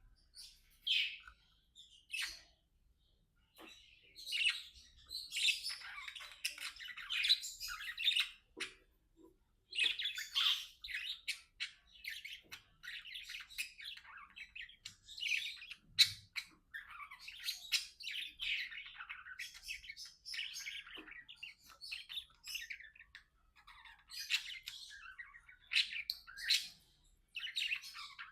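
Budgerigars chirping and warbling in quick, dense runs broken by short pauses, with a short knock about halfway through.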